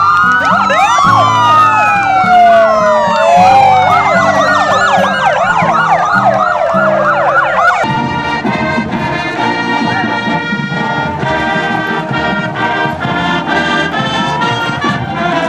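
Several motorcycle sirens wail and yelp over one another, with music underneath. About eight seconds in, the sound cuts to a marching band playing, with brass and drums.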